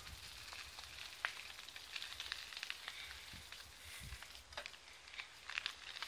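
Bicycle tyres rolling over a gravel-strewn dirt path: a steady crackling crunch dotted with sharp little ticks, with a few brief low rumbles.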